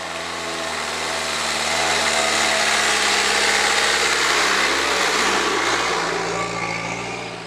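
First-generation Range Rover 4x4 driving up a dirt track, its engine running under load. It grows louder as it approaches and passes close by, then fades away.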